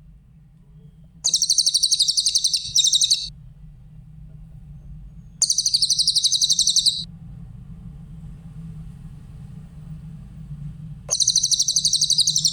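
Cililin songbird singing three loud bursts of fast, high-pitched trilling, each lasting one and a half to two seconds, with pauses between them. A low steady hum runs underneath.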